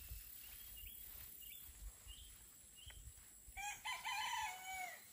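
A rooster crowing once, a single long call that starts about three and a half seconds in and drops in pitch at its end. Before it, a few short high bird chirps.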